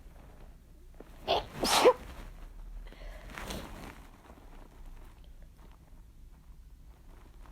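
One strong human sneeze, brought on by chhinkni, a sneeze-inducing herb. About a second in comes a short sharp catch, then a loud explosive burst with a voiced tail that falls in pitch. A softer breathy exhale follows about two seconds later.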